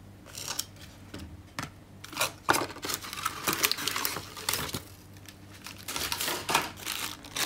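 Packaging being handled: a plastic zip-lock bag crinkling while foam trays and a cardboard box are shuffled about, in a run of irregular rustles and light knocks.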